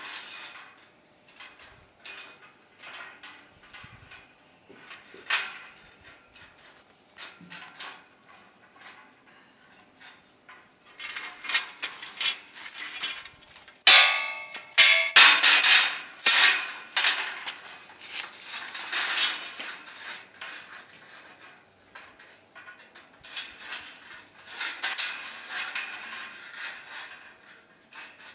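Steel gate bars clattering and knocking against each other and the frame as they are handled and set in place. Scattered knocks at first, then two dense, louder spells of clatter, about ten seconds in and again near the end.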